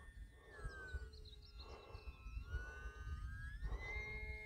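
Distant whine of a small RC plane's electric motor and propeller, sliding in pitch as the throttle changes: it dips about a second in, then climbs higher toward the end. Low rumbling wind noise on the microphone runs underneath.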